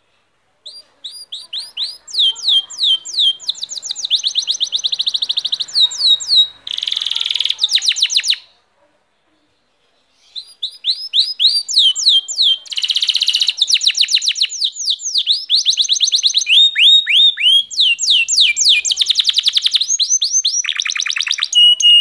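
Domestic canary singing: long phrases of fast trills and runs of repeated, quickly falling high notes, with a pause of about two seconds midway before the song starts again.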